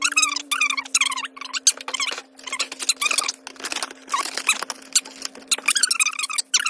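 Unboxing audio played back at five times speed: a dense run of rapid clicks and rustles with squeaky, high-pitched chattering, over a steady low hum.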